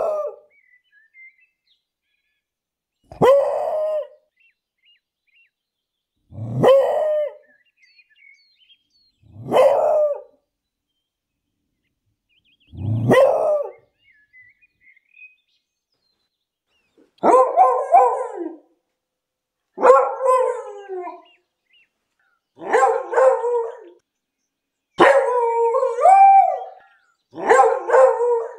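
English beagle barking. At first it gives single barks about three seconds apart. From about halfway it gives longer, drawn-out calls with a wavering pitch, about every two and a half seconds.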